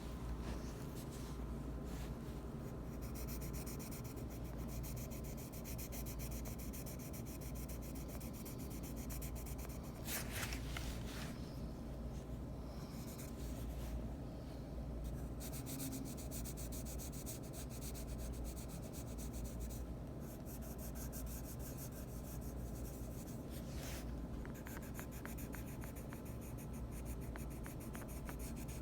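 Faint continuous scratchy rubbing over a low steady hum, with a few brief louder scratches.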